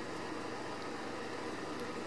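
Steady, even background noise, like a fan or air handler running, with no distinct knocks or calls standing out.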